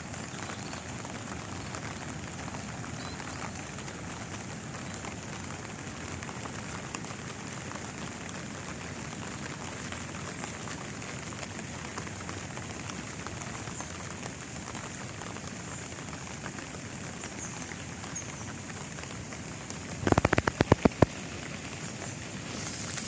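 Steady heavy monsoon rain falling on floodwater and fields, an even hiss. About twenty seconds in comes a brief flurry of loud, close taps.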